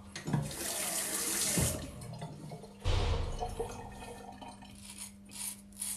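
Hot tap water running into a bathroom sink in two short spells, the first about a second and a half long and the second near the middle. This is rinsing during a wet shave.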